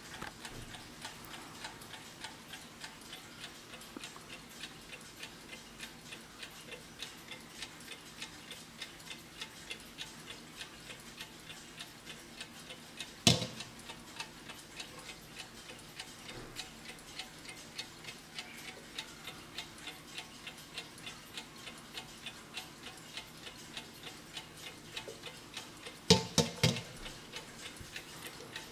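Vintage German PETER chrome wind-up alarm clock, its serviced mechanical movement ticking steadily. A single sharp knock about halfway through and three quick knocks near the end come from the clock being picked up and handled.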